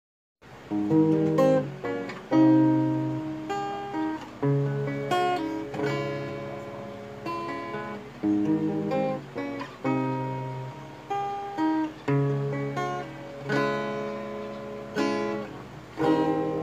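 Acoustic guitar played in chords, each struck and left to ring out before the next, starting after a short silence.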